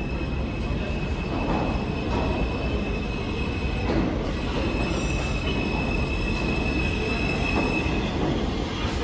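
New York City subway train running with a steady low rumble of wheels on rail, and a thin high-pitched wheel squeal that holds steady and stops shortly before the end.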